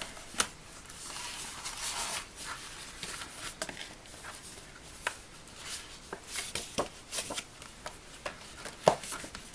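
Paper notebook inserts handled and slid under the elastic bands of a traveler's notebook cover: soft rustling and rubbing of paper, with scattered light taps and clicks, the sharpest just before the end.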